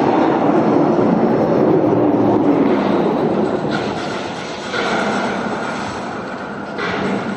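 Jet noise from a General Dynamics F-111's twin afterburning turbofans as the jet passes on full afterburner. The noise is loud for the first three seconds, then eases off somewhat.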